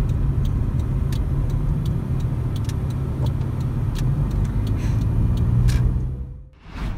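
Road noise inside a moving car's cabin: a steady low rumble of engine and tyres with scattered light clicks. It drops away abruptly near the end.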